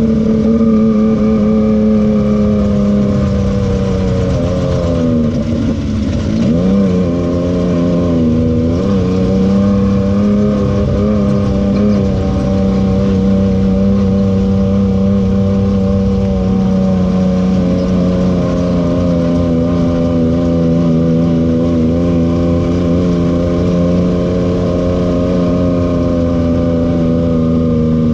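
Turbocharged Yamaha YXZ-1000R three-cylinder engine running hard under steady throttle. Its pitch dips sharply and climbs back twice, around five to seven seconds in and again near nine seconds, then holds steady with slow rises and falls.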